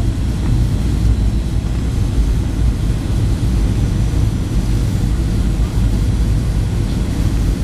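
Steady low rumble inside the cabin of a Boeing 737-700 on final approach: its CFM56-7B turbofan engines and the rush of air over the fuselage, heard from a window seat over the wing.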